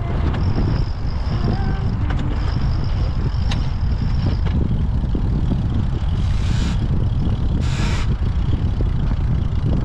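Wind buffeting the microphone aboard a racing sailboat under way, a steady low rumble. A faint high whistle runs through the first half, and two brief hisses come about six and eight seconds in.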